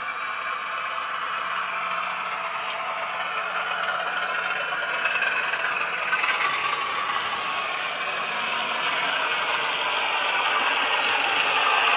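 Sound-fitted 00 gauge model of a BR Class 31 diesel: its DCC sound decoder plays the diesel engine through a small onboard speaker, with the rattle of the model running along the track. It gets steadily louder towards the end.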